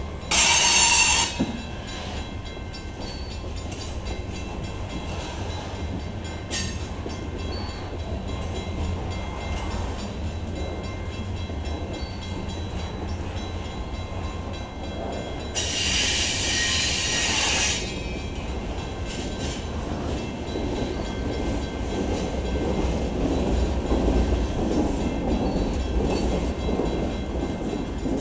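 Cars of a manifest freight train, covered hoppers and boxcars, rolling past with a steady rumble and clatter of wheels on the rails. Two brief high-pitched wheel squeals cut in, one at the very start and one about halfway through.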